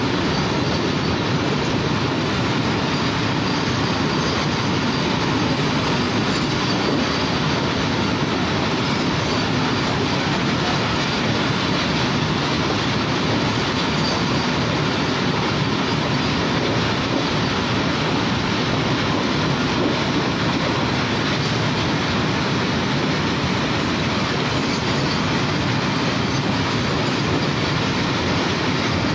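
Open goods wagons of a very long freight train rolling past one after another: a steady, unbroken noise of steel wheels running on the rails.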